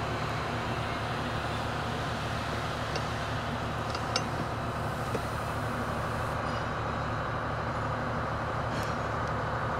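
Steady mechanical hum and hiss of background noise, with a few faint light clicks as a bolt is started by hand into a seat bracket.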